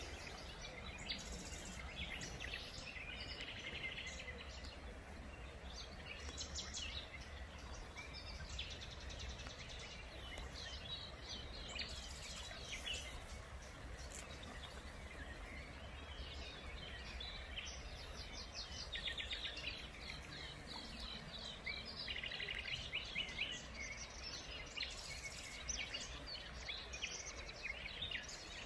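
Small birds chirping and singing on and off, with short trills, over a steady low background hum.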